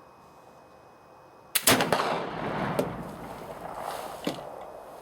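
A .50-calibre Traditions Kentucky flintlock rifle firing once, about a second and a half in: a sharp black-powder shot followed by a long rumbling echo that fades over a few seconds.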